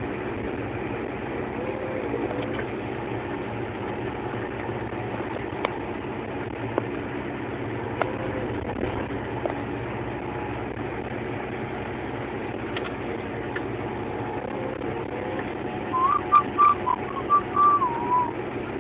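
Valtra T130 tractor's diesel engine running steadily, heard from inside the cab while snowplowing. About sixteen seconds in, someone in the cab whistles a short run of notes.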